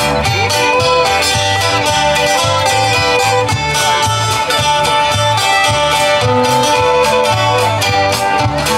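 Live country band playing an instrumental break: fiddle over strummed acoustic guitars and a steady drum beat.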